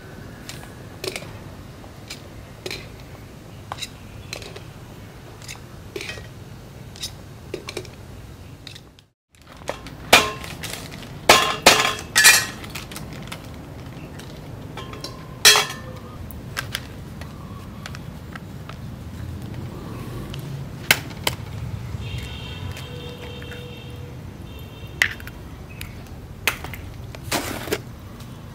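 Kitchen-prep clinks and knocks: metal tongs tapping an aluminium pot and boiled eggs dropped into a plastic colander, then utensils and bowls being handled and set down on a wooden table. The loudest knocks fall in a cluster about ten to twelve seconds in and again near fifteen seconds.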